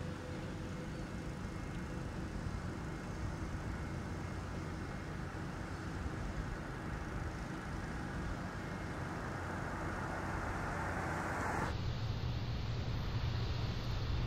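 Steady low engine rumble of heavy machinery with faint steady hums, changing abruptly near the end to a louder, deeper rumble.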